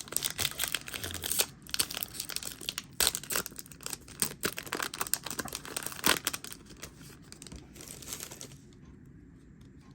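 Foil booster pack wrapper of Yu-Gi-Oh! cards crinkling and tearing as the pack is opened by hand, a run of crackles that stops about eight and a half seconds in.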